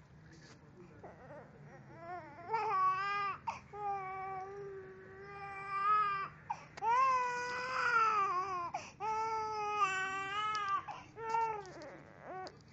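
A young child crying in long wails, about five in a row with short breaks between, starting about two seconds in.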